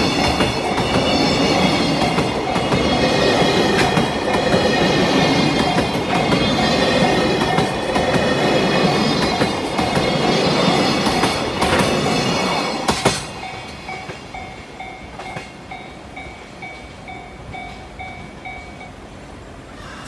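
Freight train's container flatcars rolling past over a level crossing: steady wheel rumble and clatter with a high ringing squeal, while the crossing alarm rings about twice a second. The train noise drops away about thirteen seconds in as the last car passes. The crossing alarm carries on alone and stops shortly before the end.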